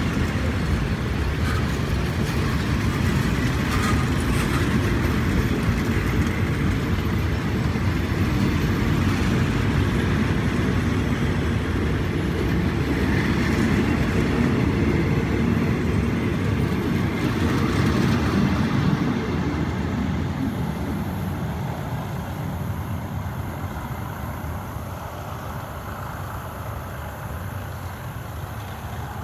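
Passenger train coaches rolling past on the rails as the train pulls out: a steady rumble of wheels on track. It fades from about twenty seconds in as the last coach moves away.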